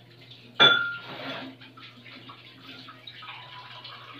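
Tableware clinking: one sharp, ringing clink about half a second in, followed by lighter scattered clatter.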